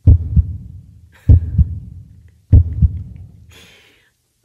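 Heartbeat sound effect: three slow, loud double thumps, each a low 'lub-dub', with a faint breathy hiss near the end.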